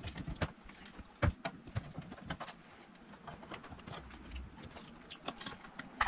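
Scattered small clicks and taps of a hand screwdriver and hands handling screws and cabinet parts, with one sharper knock about a second in.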